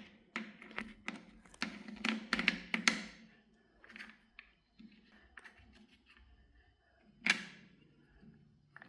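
Small clicks and knocks of the Duratech 12V mini chainsaw's plastic and metal parts being handled while its bar, chain and tensioner are put back together. There is a quick run of clicks at first, then scattered ones and one louder knock near the end.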